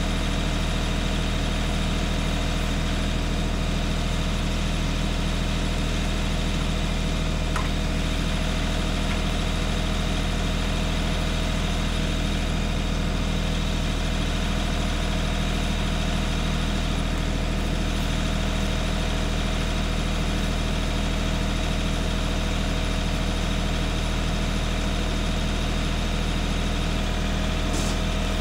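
Compact farm tractor's engine idling steadily.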